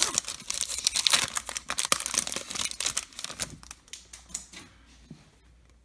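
Foil trading-card pack wrapper being torn open and crinkled by hand, a dense crackle of rustling and tearing that thins out and fades away about four seconds in.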